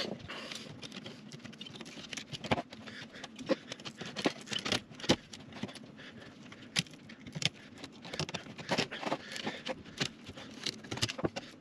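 Hand tools scraping and clicking against a metal vent-window frame as brittle old window rubber is picked out of its channel, in short irregular clicks and scrapes.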